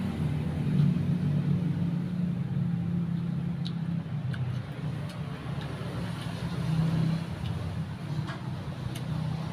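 Steady low engine hum of a motor vehicle running, wavering a little in loudness, with a few faint crisp clicks of chewing on crunchy water apple from about the middle on.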